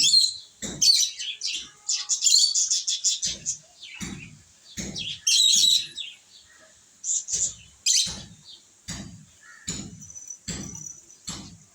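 Pet lovebirds chirping and chattering in shrill, rapid bursts, with irregular soft low knocks between the calls.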